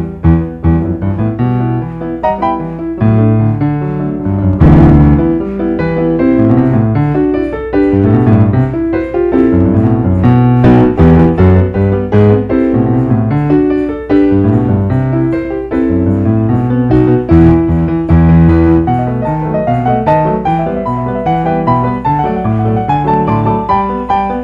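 Solo keyboard played in a piano voice: an unaccompanied instrumental piece of held chords under a moving melody, with a few louder struck chords.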